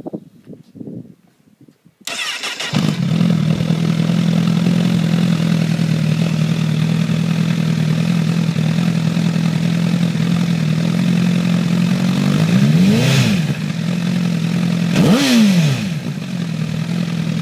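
Honda CBR1000RR inline-four with an aftermarket Taylormade exhaust cranking on the starter about two seconds in, catching and settling into a steady, too-loud idle. Near the end it is revved twice, each rev rising and falling back to idle.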